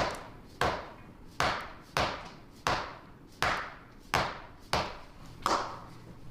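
A steady series of sharp knocks, about three every two seconds, each dying away quickly.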